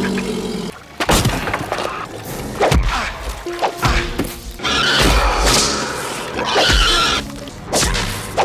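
Dramatic film score with a series of heavy hits and crashes, the first just after a brief drop about a second in.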